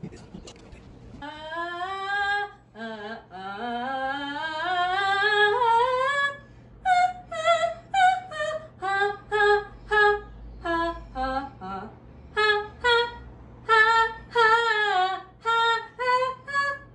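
A woman sings unaccompanied vocal exercises. A held note comes in about a second in, then a long rising glide, then a run of short separate notes stepping up and down, with vibrato.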